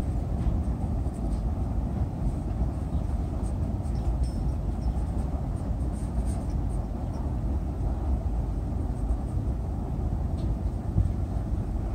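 Freight cars of a long Norfolk Southern mixed freight rolling slowly across a steel girder railroad bridge: a steady low rumble of wheels on rail, with a few faint high ticks.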